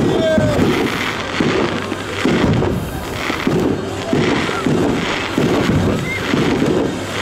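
Fireworks display: aerial shells bursting in a rapid series of deep booms, about one to two a second.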